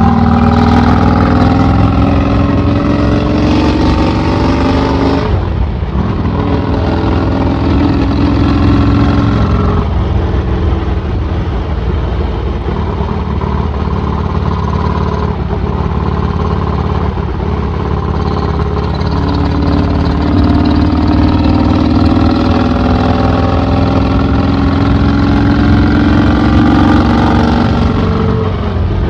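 Vincent 1000cc V-twin motorcycle engine running through an open straight-through exhaust while being ridden: it climbs in revs over the first few seconds, breaks off briefly about five seconds in, runs steadily, then climbs again in the second half before easing off near the end.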